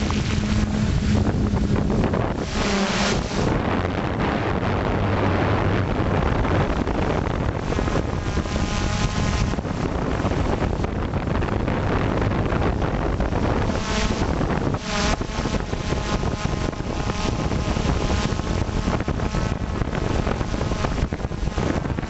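Multirotor drone's motors and propellers running, heard through its onboard camera microphone with heavy wind rush over the mic. The motor tone wavers and shifts in pitch a few times as the craft manoeuvres.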